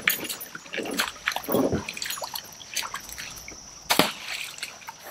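Splashing in shallow creek water as someone wades, with one sharp splash about four seconds in.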